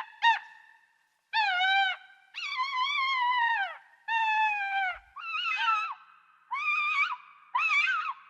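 Cheetah chirping: a series of about seven high-pitched calls with short gaps between them. The calls last from a fraction of a second to about a second and a half, and several slide down in pitch.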